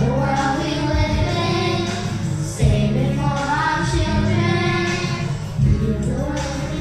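Children and a woman singing a song together through handheld microphones, over an accompaniment of long-held low notes.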